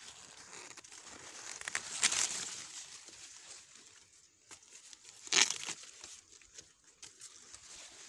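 Corn leaves rustling and crinkling as someone pushes through the stalks, with two louder swells of rustling, about two seconds in and again at about five and a half seconds.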